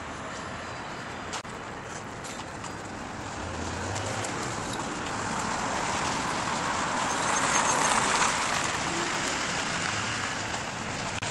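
Road traffic: a car passes close by, its tyre and engine noise swelling to a peak about eight seconds in and then fading.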